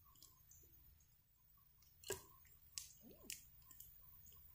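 Faint wet mouth clicks of a large dog, a Great Pyrenees–German Shepherd mix, working at a cedar stick: a few scattered clicks, the loudest about two seconds in.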